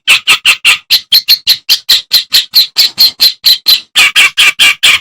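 Kerakbasi (reed warbler) singing a fast run of short, harsh, chattering notes, about five a second, with a brief break about four seconds in before a final loud burst.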